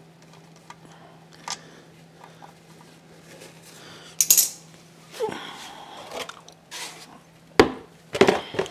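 Metal hand tools clinking against the concrete floor. Near the end, an oil drain pan is set down and pushed into place under the outboard's gearcase with a few loud knocks and clatters.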